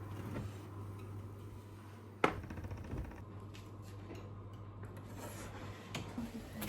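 A steady low hum with one sharp click or clink a little over two seconds in, followed by a few faint ticks.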